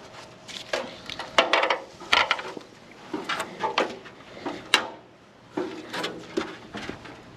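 Hard parts and tools being handled: an irregular series of knocks, clanks and clatters, the sharpest about one and a half, two and almost five seconds in.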